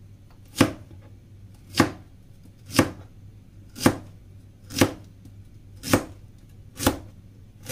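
Kitchen knife slicing a radish on a cutting board: sharp, even knocks of the blade hitting the board about once a second, seven in all.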